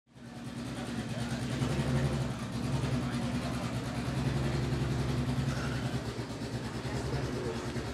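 1977 Porsche 935/2.0 'Baby' racing car's 1.4-litre single-turbo flat-six idling steadily, fading in over the first second.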